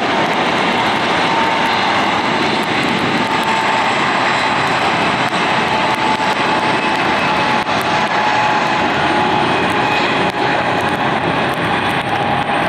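Boeing 777-200's jet engines at takeoff thrust: a loud, steady jet rumble with a faint whine.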